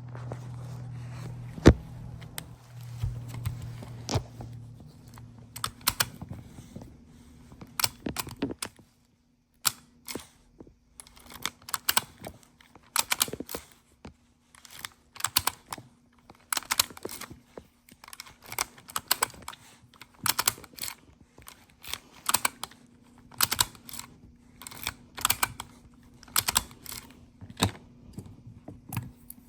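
Repeated sharp clicks and rattles of small metal parts in quick clusters, from an Acura/Honda ignition lock and its housing being worked by hand. A low hum runs under the first few seconds.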